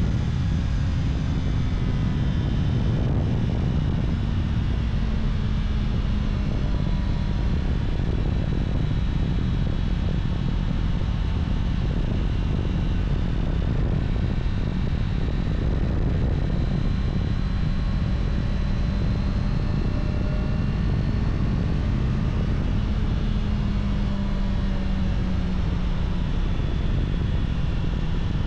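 Honda CBR650R's inline-four engine on its stock exhaust, running at a steady cruise with only gentle rises and falls in pitch, over a steady rushing noise.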